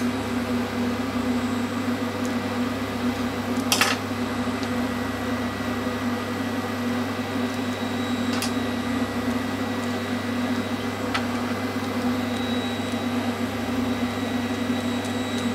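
Steady electric machine hum in a workshop, with a light knock about four seconds in and a couple of fainter clicks later.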